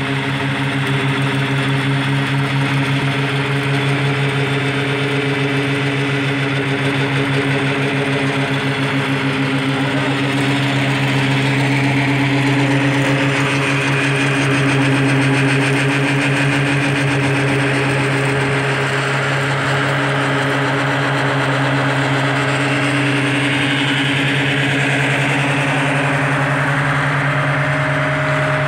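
Engine of a slipform kerb-laying machine running steadily at constant speed, an even engine hum with no change in pitch.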